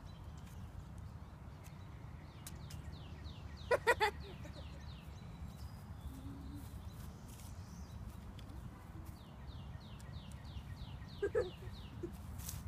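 A songbird singing two runs of quick, high, descending chirps over a steady low rumble. About four seconds in, a short loud cry in three pulses, a meow or a child's voice, is the loudest sound, with a weaker one near the end.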